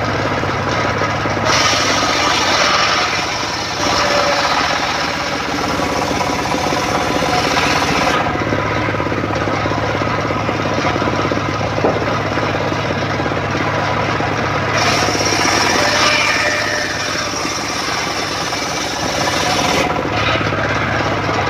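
Homemade engine-driven circular saw bench ripping wooden planks. The engine runs steadily under a loud rasping blade noise while a plank is fed through. This happens twice, with a calmer stretch of the blade spinning freely in the middle.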